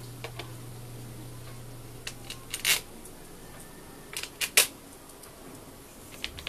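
Scattered sharp clicks and knocks of small parts being handled as the plastic cover and its screws are fitted on a Bosch GSH 11 E demolition hammer, with two louder clicks about two and a half and four and a half seconds in.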